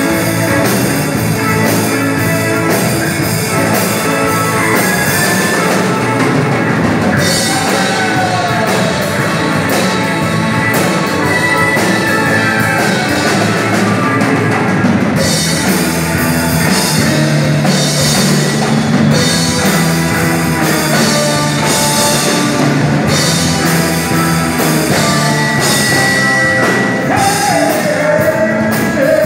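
Live rock band playing an original song: electric guitars, keyboard and a drum kit with steady cymbal strokes. The cymbals drop back for several seconds in the middle before the full band comes back in.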